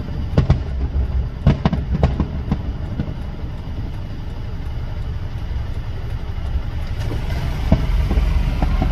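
Fireworks bursts heard from inside a car: a string of sharp bangs in the first few seconds, then scattered pops. Under them runs a steady low rumble from the car, which grows louder near the end.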